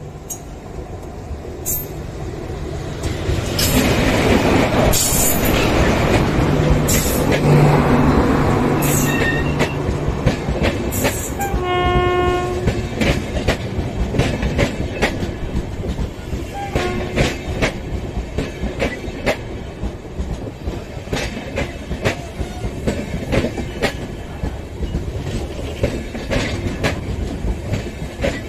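An Indian Railways electric-hauled passenger train approaching and passing close by: its rumble builds over the first few seconds and is loudest as the locomotive goes by, then the coaches roll past with a steady run of wheel clicks over the rail joints. A short horn blast sounds about twelve seconds in.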